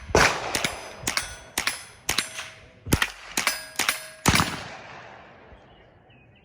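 A quick string of about nine gunshots, roughly two a second, with several of them followed by the ringing of steel targets being hit. The shots stop a little over four seconds in, and the last one trails off slowly.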